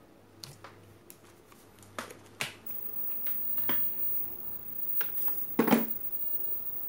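Scattered plastic clicks and knocks from a mains plug being handled and pushed into an extension power socket, the loudest a double knock near the end.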